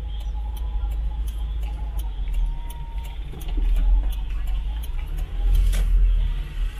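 Car on the move, a low engine and road rumble that swells twice, about four and six seconds in, with a light regular ticking of about three ticks a second.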